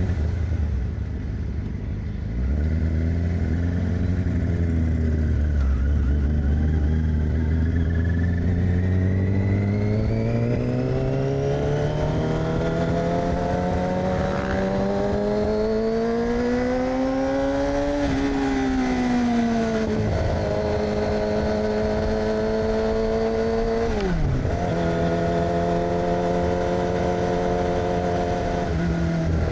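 2006 Yamaha R6's 600 cc inline-four through an aftermarket AR exhaust, under way: the engine note holds low, then climbs steadily for about ten seconds as the bike pulls in one gear, falls back and holds steady, then drops suddenly with a click about 24 seconds in, as at an upshift, and runs steadily again.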